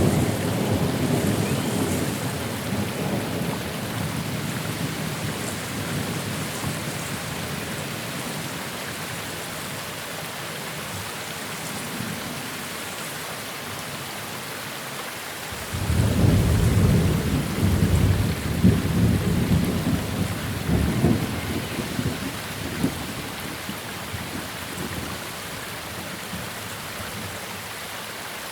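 Steady rain with two rolls of thunder. The first is dying away over the opening seconds; the second breaks suddenly about halfway through, rumbles for several seconds, then fades back under the rain.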